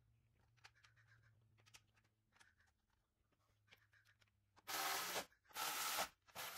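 Faint clicks of the plastic cover being handled, then three short whirring runs of a small handheld power screwdriver driving the cover's screws in, each about half a second long.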